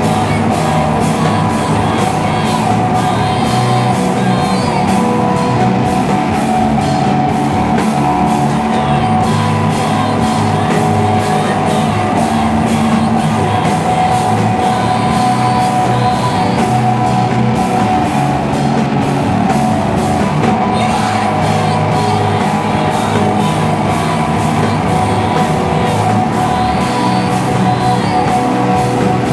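A live noise rock band playing: loud, dense distorted guitars holding droning sustained notes over a steady drum beat, with a voice singing over it at times.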